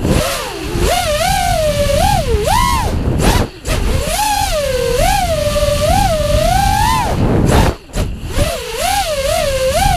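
FPV racing quadcopter's brushless motors whining, their pitch rising and falling with every throttle change, over a low rumble. The whine drops out briefly twice, a few seconds in and near the end, as the throttle is chopped.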